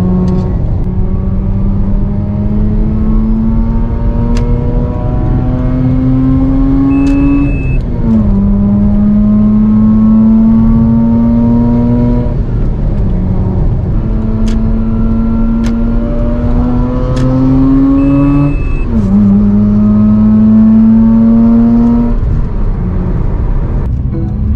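Mazda RX-8's 13B Renesis two-rotor rotary engine accelerating hard, heard from inside the cabin. Its pitch climbs steadily through each gear and drops sharply at the upshifts, about eight and nineteen seconds in.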